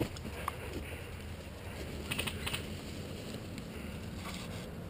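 Faint sharp clicks over a low steady rumble, with a quick run of clicks about two seconds in.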